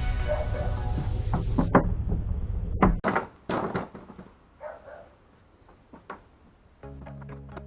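A few scattered knocks and clicks of PVC pipe parts being handled, with a steady hum under the first few seconds. Background music starts near the end.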